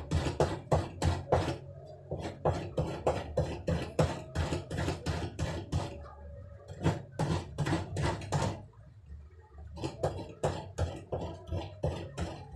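Coconut being grated by hand: rhythmic scraping strokes of the coconut half against a metal grater, about three to four strokes a second, with a short pause about nine seconds in.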